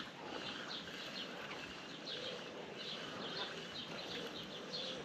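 Small birds chirping: a steady string of short, high notes repeated every fraction of a second, over a faint outdoor background.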